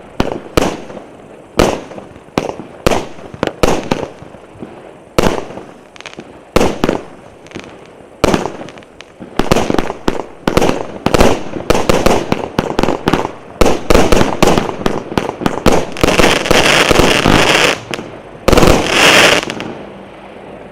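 Tornado C101 fireworks cake firing: sharp bangs every half second to a second at first, quickening about halfway into rapid volleys, then merging into dense crackling before dying down near the end.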